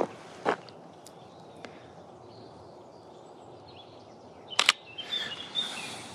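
Camera shutter firing with a sharp double click about four and a half seconds in, after a couple of softer clicks near the start. Small birds chirp briefly just after it, over a steady outdoor hiss.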